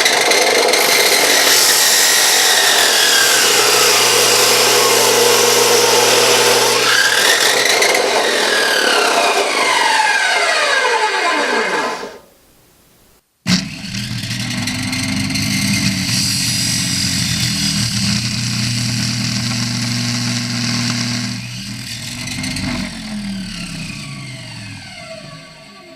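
Electric chop saw motor running at full speed while its blade cuts through a baby doll, then spinning down with a falling whine. After a silent break of about a second it runs again and winds down near the end.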